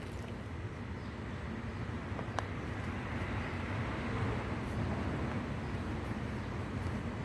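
Steady low rumbling background noise that swells a little near the middle, with one faint click about two and a half seconds in.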